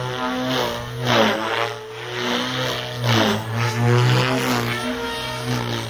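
Electric OXY 4 RC helicopter with 320 mm rotor blades flying aerobatics. The rotor gives a steady hum with loud whooshing surges as the blades load up in flips and turns.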